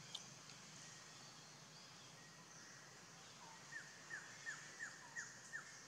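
Quiet forest background with a single click right at the start, then a run of six short chirps, each falling in pitch, evenly spaced about a third of a second apart, from a small animal's call.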